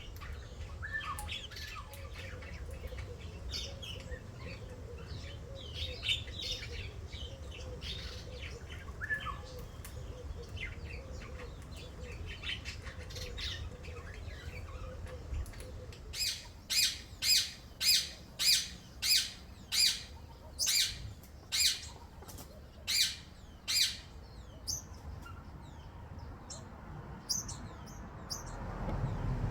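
Garden birds chirping and twittering, then one bird gives a run of about a dozen loud, harsh squawks, roughly one and a half a second, for about eight seconds before the chirping goes on faintly.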